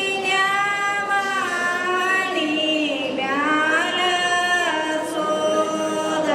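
Singing, with long held notes that slide up and down in pitch.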